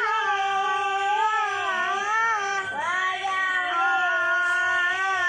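A child singing sholawat, an Islamic devotional song, in a single high voice that holds long, slowly wavering melismatic notes with only brief breaks.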